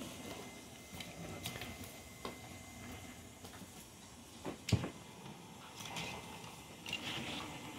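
Vizsla puppies playing and scuffling on a hard floor: scattered light clicks and knocks of paws and bodies, with one louder thump a little before the five-second mark.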